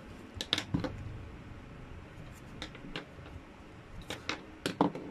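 Short scratchy rubbing strokes and light taps of a fingertip on a spiral sketch pad, blending graphite shading on the paper. They come in three brief clusters: about half a second in, near three seconds and around four seconds.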